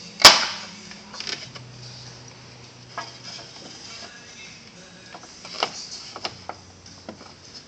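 Hard plastic ram-air scoop being pushed and lined up in the car's front bumper opening. There is one sharp plastic knock just after the start, then scattered lighter clicks and knocks as the parts are handled.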